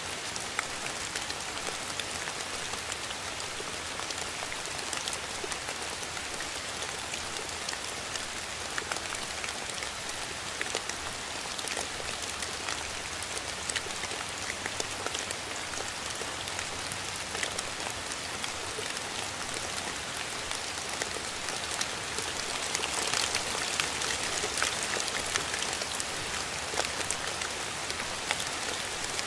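Steady rain falling, an even hiss dotted with the ticks of individual drops; it grows a little heavier about three-quarters of the way through.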